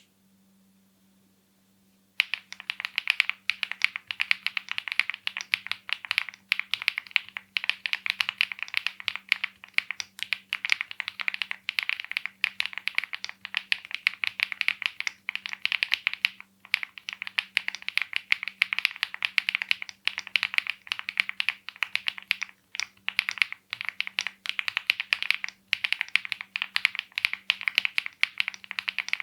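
Fast continuous typing on a Weikav Record Alice-layout mechanical keyboard with HMX Macchiato linear switches and GMK-Y keycaps: dense clacking keystrokes starting about two seconds in, with a couple of short pauses.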